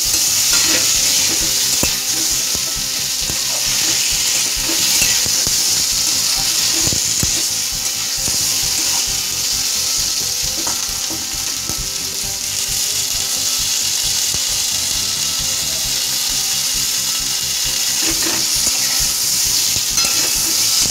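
Pointed gourd and boiled potato pieces sizzling steadily in hot oil in a wok, with a metal spatula scraping and knocking against the pan as they are stirred.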